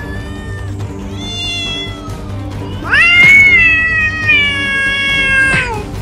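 A cat meowing, probably a sound effect: a short meow about a second in, then a louder, long meow starting about halfway through that rises and then slowly falls in pitch.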